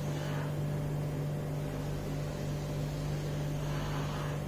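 A steady low hum, with faint strokes of a marker drawing on a whiteboard shortly after the start and again near the end.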